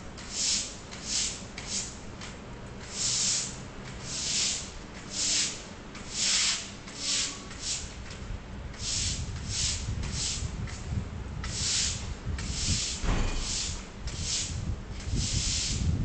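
Pressure washer wand spraying in short bursts, a jet of hiss about once a second as the trigger is pulled and released. A low rumble joins about halfway through.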